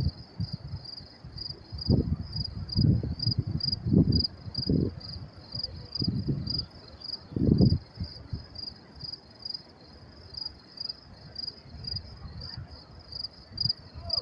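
Crickets chirping in a steady, high, even pulse of about two or three chirps a second. Several loud low rumbles come through in the first eight seconds, the loudest about seven and a half seconds in.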